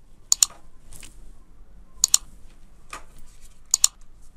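Mouse-click sound effects: three sharp double clicks about 1.7 seconds apart, each a press-and-release pair, with a few fainter single clicks between them.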